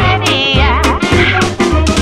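Background music with a steady drum beat, a pulsing bass line and a wavering melody on top.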